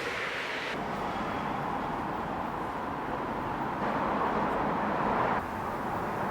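Steady outdoor background noise with no clear single source, which shifts abruptly in level and tone about a second in and twice more.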